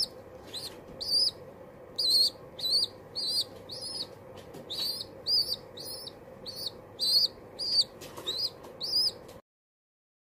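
Young pigeon squeaking: a run of short, high-pitched cheeps, about two a second, that stops abruptly near the end.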